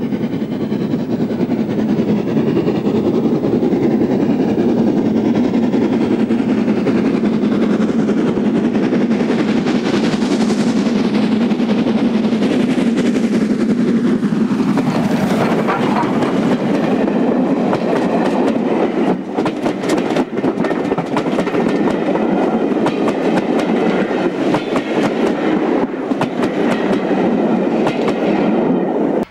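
A steam locomotive approaches and passes close by with a train of coaches. The sound is loudest as the engine goes past about halfway through, then the coaches' wheels click steadily over the rail joints.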